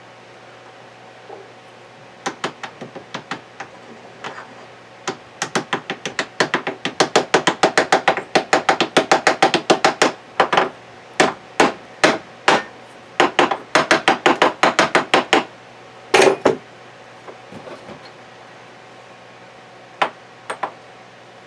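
Hammer blows driving a bearing in a gearbox case: a few scattered taps, then a fast run of strikes lasting about ten seconds, then a few more near the end.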